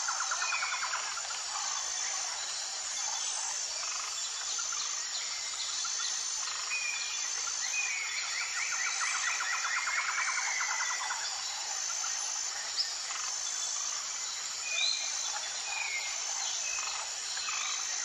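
Forest ambience of insects and birds: a steady, high insect buzz that pulses evenly, with short bird chirps and a fast trill lasting a few seconds near the middle.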